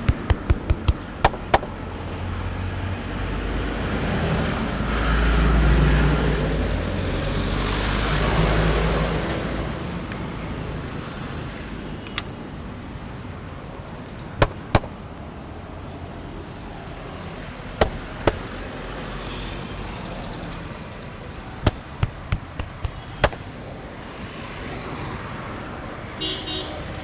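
Street traffic rumbling past, with sharp hand slaps from a head massage: a quick run of taps in the first second and a half, then single and paired slaps at intervals later on.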